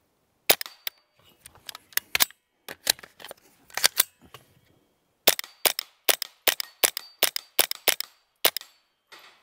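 Suppressed JP15-22 .22 LR semi-automatic AR rifle with a KG Made RF22 suppressor firing subsonic rounds: many sharp, fairly quiet shots in quick succession at steel plates. There is a short break near the middle, then a faster string.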